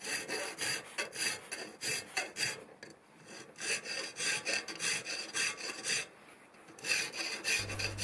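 Hand file rasping across a steel plate dropout clamped in a vice, in quick repeated push strokes with two short pauses.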